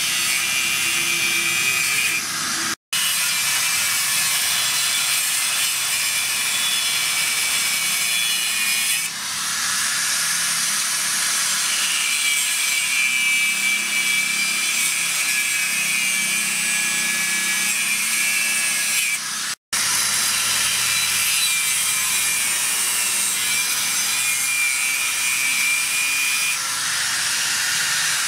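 Electric angle grinder with an abrasive cut-off disc cutting through a steel motorcycle brake disc rotor: a steady, loud high-pitched grinding hiss. It drops out twice for an instant, near 3 seconds and 20 seconds in.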